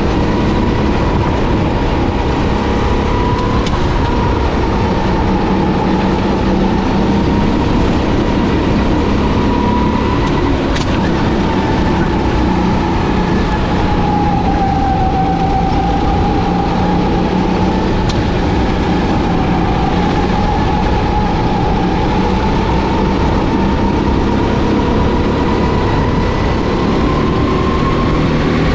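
Racing kart engine running continuously at race speed, its pitch wandering slowly down and back up with engine speed and climbing near the end, over a heavy rumble.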